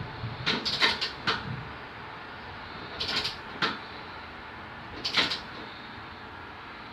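Short sharp knocks and clanks, in small clusters about a second in, around three seconds and around five seconds, over a steady background hiss. They are typical of hand tools and metal hitch parts being handled.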